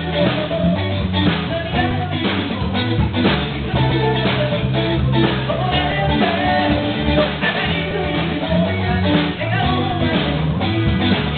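A small rock band playing live: electric guitars and a drum kit keeping a steady beat, with a sung vocal over them.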